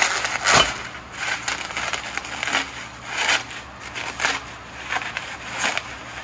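Plastic bubble wrap crinkling and crackling in irregular bursts as it is pulled off a stainless steel exhaust pipe, loudest about half a second in.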